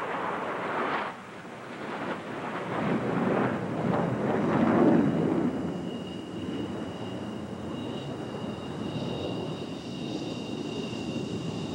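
MiG-29 jet fighters' twin Klimov RD-33 turbofans flying past: a rushing jet noise that swells to a peak about five seconds in, then settles to a steadier rumble with a thin high whine.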